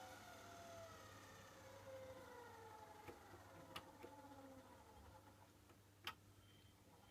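Miele W Classic WDA110 washing machine winding down at the end of its spin: a faint motor and drum whine falling slowly in pitch, with a few sharp clicks, the loudest about six seconds in.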